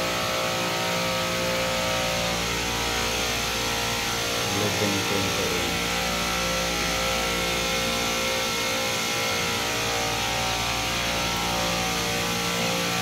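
Commercial refrigeration rack compressors running in the machine room: a steady mechanical hum with a dense stack of constant tones over a wide hiss.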